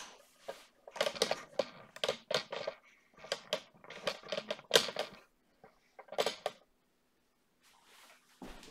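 Handling noise from a camera being picked up and repositioned: a rapid run of clicks and knocks for about five seconds, stopping a little over six seconds in.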